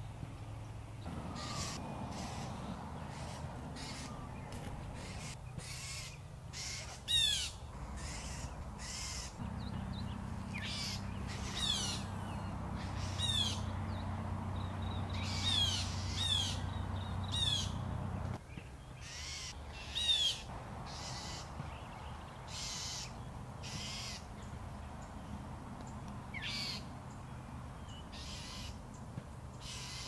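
Birds giving harsh alarm calls over and over, many of them short falling cries, mobbing a great horned owl: the commotion that signals a predator nearby. A low steady hum runs underneath from about a second in until about halfway through.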